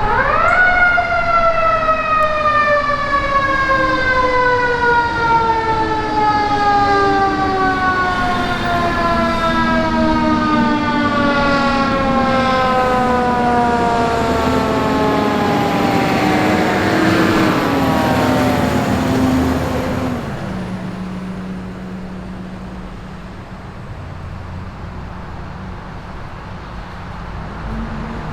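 Fire ladder truck's siren sweeping up sharply, then falling slowly in pitch for about twenty seconds until it dies away. The truck's engine runs underneath and carries on alone near the end, quieter.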